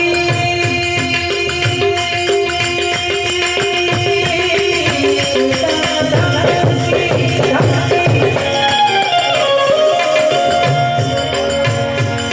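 Instrumental passage of a devotional bhajan: a harmonium plays a melody of long held notes that steps down near the end, over a steady tabla-style hand-drum beat and a rattle keeping time.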